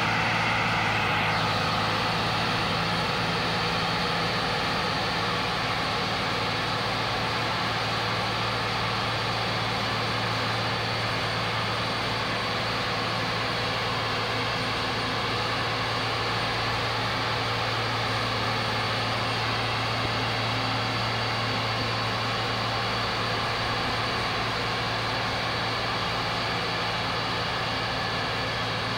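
Heavy farm machinery running steadily under load: a John Deere self-propelled forage harvester chopping maize, with a tractor hauling the trailer alongside, giving a constant deep engine drone with a steady hum.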